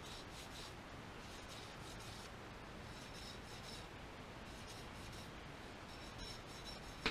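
Faint scratchy rubbing of fingertips over the freshly hand-honed cast-iron cylinder wall of a Toyota 20R engine block, whose surface still has vertical scratches after honing.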